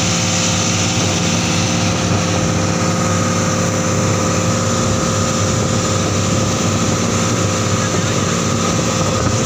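Dive boat's engine running steadily at cruising speed, a constant drone with a steady hum in it, over the rush of churning wake water.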